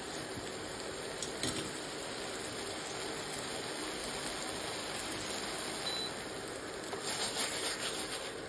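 Manchurian balls in a thick sauce sizzling steadily in a steel frying pan over low heat. Near the end there are a few scrapes and knocks as the pan is moved.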